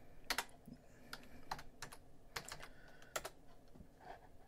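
Computer keyboard being typed on: several faint, unevenly spaced keystrokes as a short word is typed and Enter is pressed.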